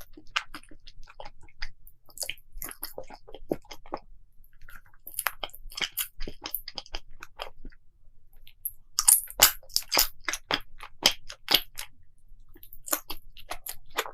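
Close-miked chewing and biting of crunchy food, with irregular crisp crunches. They thin out about eight seconds in, then come thick and loud for a few seconds.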